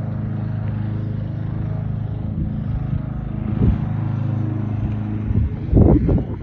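A steady low engine-like hum, level throughout and not rising or falling, that fades out about five seconds in; a few loud, short bumps follow just before the end.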